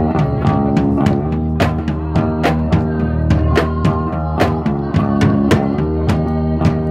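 Live band playing loud: electric bass over a drum kit, with regular drum and cymbal hits.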